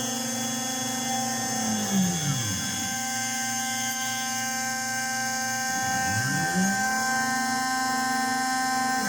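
Home-built CNC column milling machine running: a steady high whine with a lower motor tone that sweeps down and back up twice, about two seconds in and again about six seconds in, as the axis drive slows and speeds up again.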